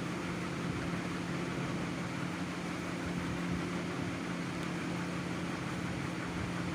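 A steady low mechanical hum with a few constant droning tones under an even hiss, unchanging throughout.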